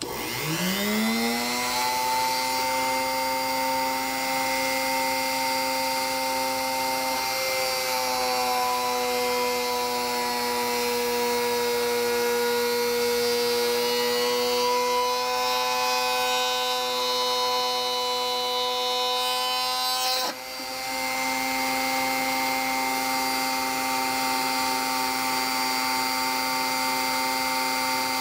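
Dremel rotary tool motor spinning up, then running at high speed with a steady whine while a 1/16 inch bit drills into a mild steel fender washer; the pitch sags slightly at times. About 20 seconds in, the motor briefly drops and comes straight back up to speed.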